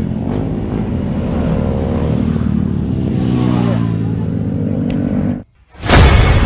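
Motorcycles running past on the road, their engine pitch sliding as they go by. About five and a half seconds in the sound cuts out, then a loud boom-like sound effect hits.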